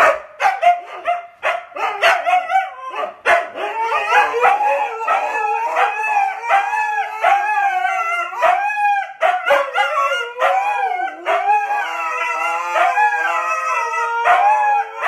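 A dog howling and yowling in a long, nearly unbroken run of short cries that waver up and down in pitch.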